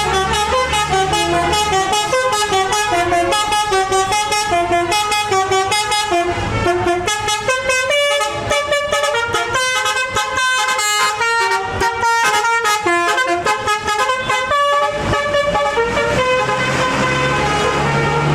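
A bus's 'telolet' Basuri musical air horn playing a quick melody of stepped notes. The low hum of the engine fades after a couple of seconds and returns near the end.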